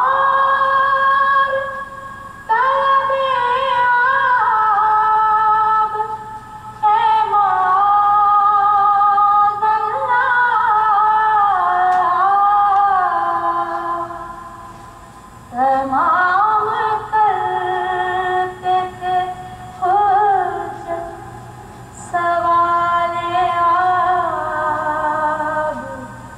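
A woman singing a Muharram devotional lament unaccompanied, in long, ornamented phrases with short pauses between them, heard through a television's speaker.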